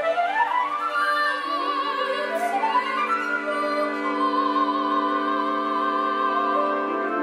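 Contemporary chamber ensemble with soprano playing: pitches slide upward through the first few seconds, then settle into held notes, a high line with wide vibrato over sustained lower tones.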